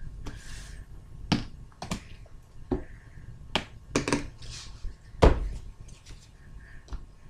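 A run of light knocks and clicks, about seven in all, as a book and a marker are picked up and set down on a wooden desktop, with some rustling between. The loudest knock comes about two thirds of the way through.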